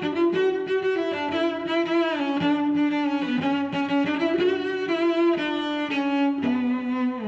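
Background music: a string melody of long held notes that step in pitch every second or so.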